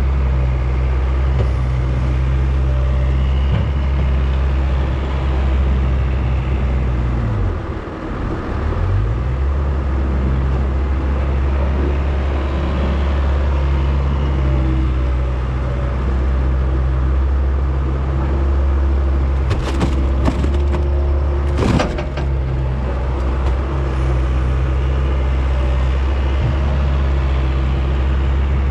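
A skid-steer loader's diesel engine running steadily. About eight seconds in, the engine speed sags briefly and picks back up, as it does under load. A few sharp knocks and clanks come about two-thirds of the way through.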